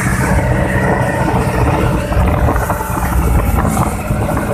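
Outrigger fishing boat's engine running steadily while under way, mixed with wind and water noise.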